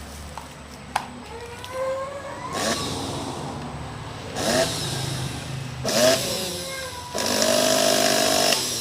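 Electric motor of a National blender switched on in short runs, four times, each one spinning up and winding down again, with the last run the longest at about a second and a half; a click comes about a second in. This is a test run after the motor has been serviced and reassembled.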